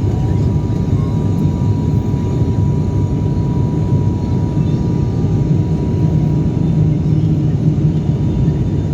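Steady drone of an airliner's engines heard from inside the passenger cabin on the descent to landing, with a faint, steady high whine over it.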